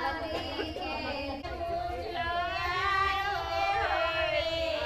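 Singing: a slow melody in a high voice with long, wavering held notes and glides.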